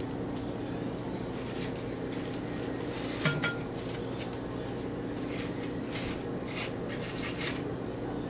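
Serving tongs clinking and scraping in a glass bowl of ceviche, with one sharp ringing clink a little over three seconds in. This is followed by several short crisp rustles as fried plantain chips are handled.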